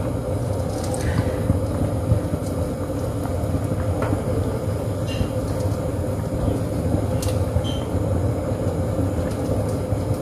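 Steady low rumble and hum of a running kitchen stove, with a few light clicks and taps as vegetables are placed from a wire basket into the pan of simmering broth.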